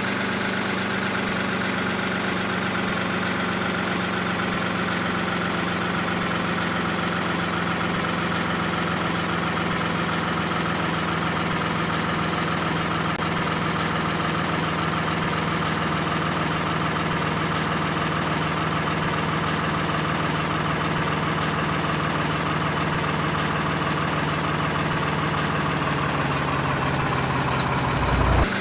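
Steady idling engine hum with an even drone. Near the end its pitch sags and it briefly gets louder.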